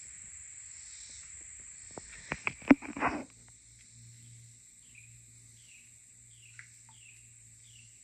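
Summer creek-side ambience: insects keep up a steady high drone throughout. A few sharp knocks come between about two and three seconds in, and from about four and a half seconds a bird repeats a short falling chirp roughly twice a second.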